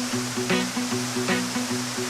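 Background music of plucked notes with a steady beat over the steady rush of a waterfall.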